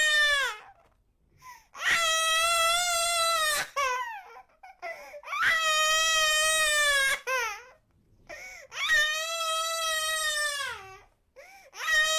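A baby crying hard: about four long, high wails, each falling in pitch at its end, with short gasping breaths between them.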